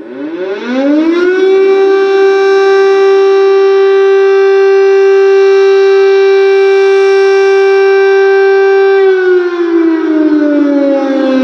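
Air-raid siren sounding its wail, warning of an air strike. The pitch rises for about a second and a half, holds loud and steady, then begins to fall near the end.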